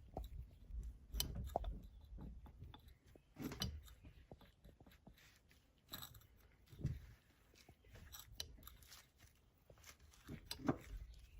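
Irregular light clicks, knocks and short scrapes of hand work on metal parts, with a few sharper knocks standing out; faint overall, with a low rumble underneath.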